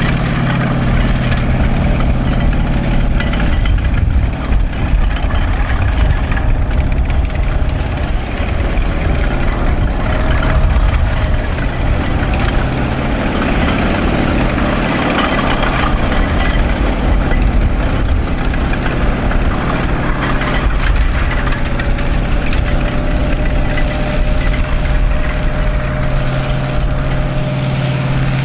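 M4 Sherman tank driving slowly across grass: its engine runs steadily under the noise of its steel tracks, with a faint thin whine over it.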